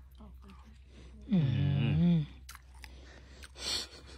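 A person eating soft durian flesh: wet mouth clicks of chewing throughout, a loud wordless vocal sound about a second in that rises and then wavers in pitch for about a second, and a short breathy hiss near the end.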